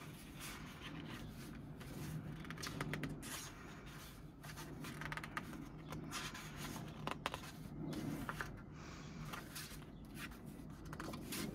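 Pages of a photo book being turned and handled by hand: faint, scattered paper rustles and light brushing.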